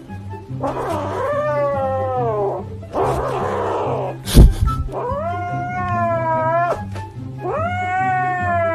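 A cat yowling in three long drawn-out calls, the first falling in pitch. A sharp knock comes about halfway through, over background music.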